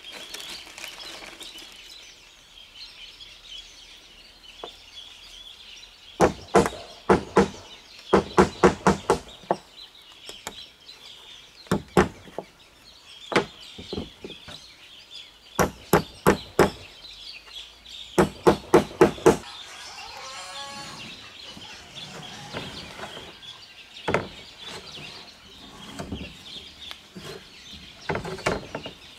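Runs of sharp hammer blows, four to six quick strikes at a time, fixing corrugated roofing sheets. A chicken calls once about two-thirds of the way through, over steady bird chirping.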